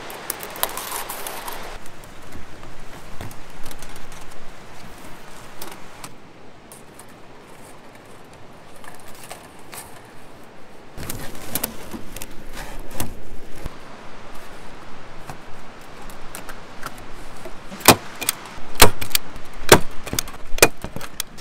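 Cooking-prep handling noises: rustling and light clinking, then a quick run of sharp knocks and clacks near the end.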